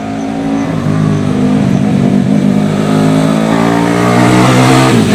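Yamaha Vega ZR four-stroke single fitted with a Mio cylinder, about 200 cc, being ridden past at moderate throttle without hard revving. It grows louder as it approaches, and its pitch drops near the end as it goes by.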